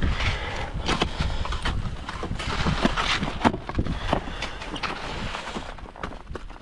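Snow crunching and scraping in a quick, uneven series of short strokes, about two or three a second.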